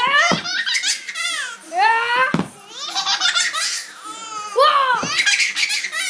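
A baby laughing hard, in repeated high-pitched bursts of belly laughter and giggles.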